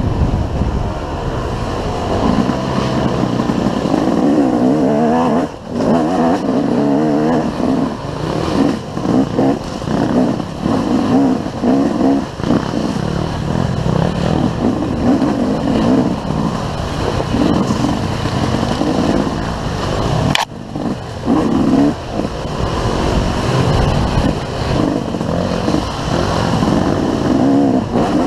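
Enduro dirt bike engine heard on board as it is ridden along a trail, its note rising and falling constantly with the throttle. Twice, about a fifth and two-thirds of the way in, the engine note drops away briefly as the throttle is shut.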